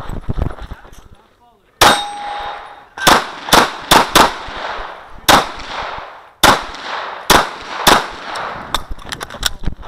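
Handgun shots fired in quick strings and pairs, about ten in all, during a practical shooting stage. The first shot, about two seconds in, is followed by roughly a second of metallic ringing, as from a hit steel target.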